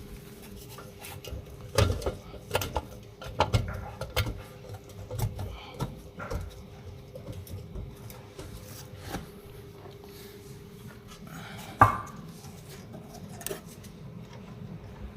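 Scattered clinks and knocks of metal tools and parts being handled, with one loud sharp knock near the end, over a steady faint hum.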